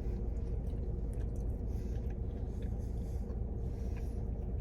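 A person chewing a bacon cheeseburger, faint soft mouth clicks over a steady low rumble and hum in the background.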